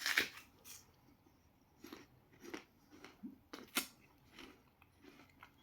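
A person chewing a bite of apple, with a crunch right at the start and then softer, irregular crunches and mouth sounds.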